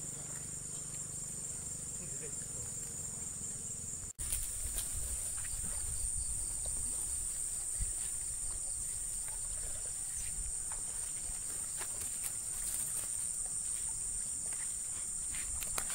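Steady high-pitched insect chorus. About four seconds in the sound breaks off for an instant. After that the chorus is louder, with low rumble and scattered faint clicks of handling or footsteps.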